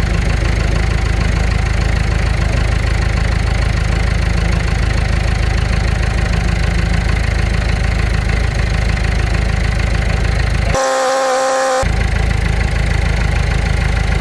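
Kubota U55-4 mini excavator's diesel engine running steadily. About eleven seconds in, it is broken for about a second by a steady pitched tone with overtones.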